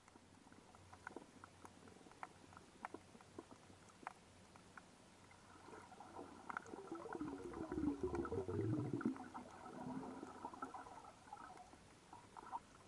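Underwater reef sound: scattered sharp clicks and crackles, with a louder stretch in the middle of low, wavering, rumbling sound that rises and falls in pitch.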